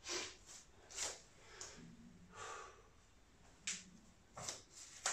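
A man's sharp breaths, faint and short, about six puffs at irregular spacing, the effortful exhalations of someone working through repetitions of a floor bridge-and-reach exercise.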